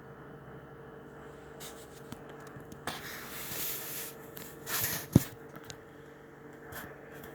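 Rustling and scraping in short bursts, with one sharp click about five seconds in, the loudest sound.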